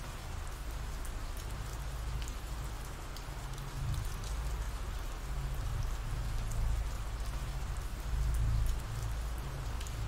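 Ambient rain sound effect: a steady, even hiss of falling rain with scattered drop ticks and a low rumble underneath.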